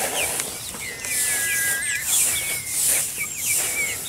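Chicks peeping: many short, falling chirps and one longer held peep about a second in, along with the dry rustle of rice hulls being scooped into a rubber bucket near the start.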